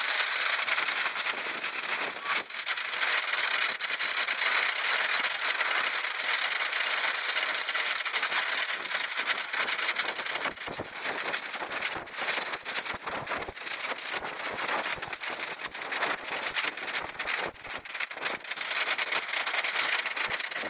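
Wooden roller coaster's chain lift and anti-rollback dogs clattering as the train is hauled up the lift hill: a steady rattle that turns into a fast run of clicks in the second half.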